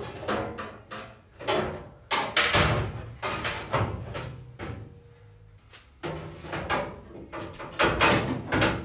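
Loose sheet-metal front wing being handled and offered up against a bare car bodyshell: a run of irregular clanks, rattles and scraping knocks as the panel flexes and bumps the metal, with a quieter lull in the middle.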